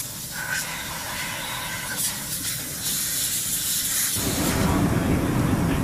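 Steady hissing ambient noise of a carrier hangar bay, with faint thin whistling tones. About four seconds in it switches suddenly to a louder low rumble of machinery.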